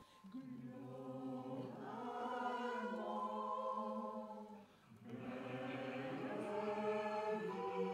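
A choir singing long held chords in two phrases, with a short break a little past halfway.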